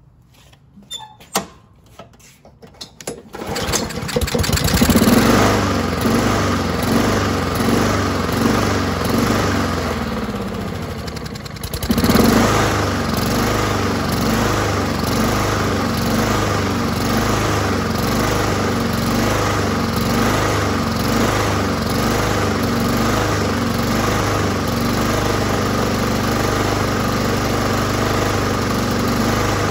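Honda GCV160 lawnmower engine with a new carburettor starting about three seconds in and running, its speed wavering up and down about once a second: the surging the owner is trying to cure. About ten seconds in it sags, then picks back up sharply.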